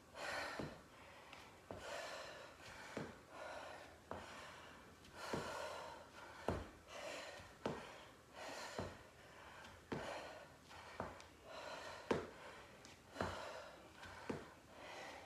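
A woman breathing hard with exertion, one audible breath about every second, with short soft thuds of her feet landing on the exercise mat as she steps out and back in.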